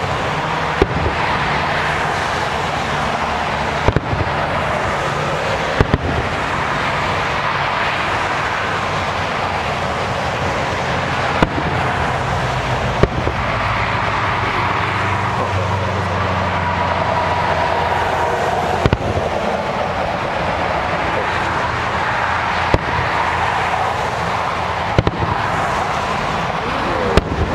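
Aerial fireworks shells bursting, about ten sharp bangs at uneven intervals a few seconds apart, over a steady background hiss.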